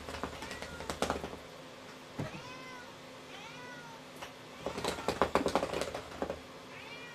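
Knocking and clattering of a motorized Cheerble ball rolling inside a round wooden track toy as a cat paws into its holes, in two bursts: in the first second and again around five to six seconds in. Between the bursts come several short rising-and-falling mews.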